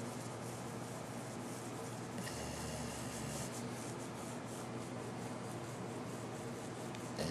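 Black Labrador retriever snoring in its sleep, with one longer, louder snore about two seconds in.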